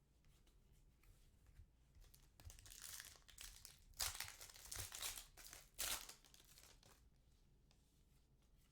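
Trading cards and their foil pack wrapper being handled, crinkling and rustling in a few short bursts, the loudest about four seconds in.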